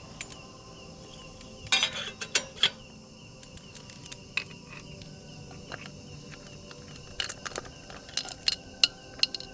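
Metal cooking utensils and cookware clinking and tapping in two short runs, over a steady chirping of night insects.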